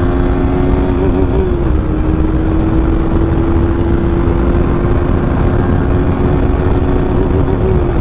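KTM RC200's single-cylinder engine through its loud exhaust, cruising at steady revs with wind rushing over the microphone. The engine note wavers briefly about a second in and again near the end.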